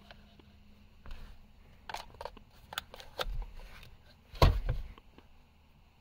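Scattered small clicks and knocks of hands handling a plastic power inverter and fastening battery-cable terminals onto its screw posts, with one louder knock a little past four seconds in.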